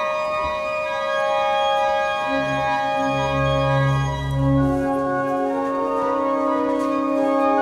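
Organ playing slow, held chords; deep bass pedal notes come in a couple of seconds in and drop out around five seconds, while the upper chord keeps sounding.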